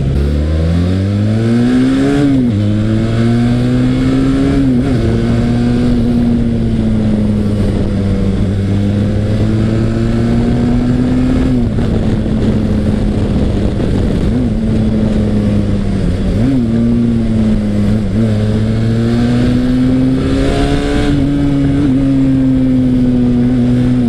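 Benelli TRK 502's 500cc parallel-twin engine on its stock exhaust, under way. It revs up over the first couple of seconds, then runs at a fairly steady pitch with a few brief dips and surges as the throttle changes.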